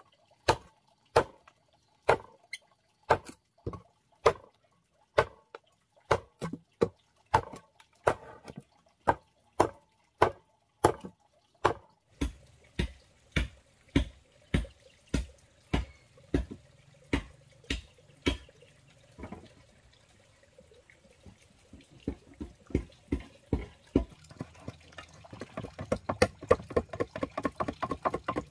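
A heavy chopping knife strikes into a wooden board again and again, cutting out a rectangular opening, about one or two blows a second. Near the end the strokes become quicker and lighter, several a second, as the edges of the hole are trimmed.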